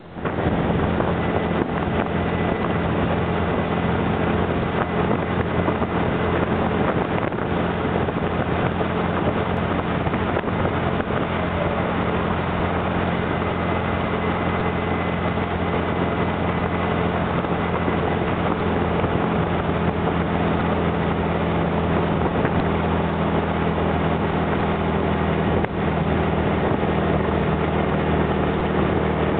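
Dune buggy's engine running steadily at highway cruising speed, mixed with an even wash of wind and road noise.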